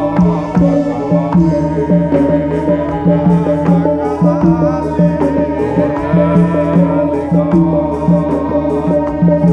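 Live Javanese troupe music: gamelan-type percussion instruments and hand drums play a steady, evenly pulsing repeating pattern, with a voice singing a wavering melody over it.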